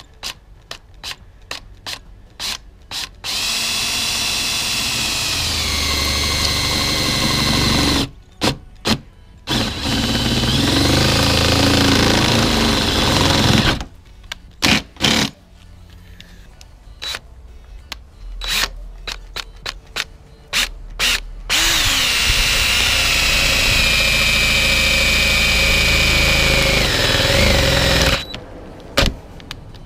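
Cordless drill boring large holes through the car's sheet-metal trunk lid with a big bit: short trigger spurts, then three longer runs whose whine drops in pitch as the bit bites into the metal, with short spurts between the runs.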